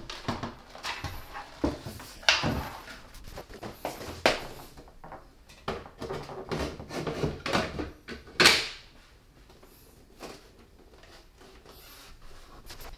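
A 34-inch curved computer monitor and its stand being handled and fitted together on a desk: a string of knocks, clunks and short scrapes, the loudest about eight seconds in, then quieter handling.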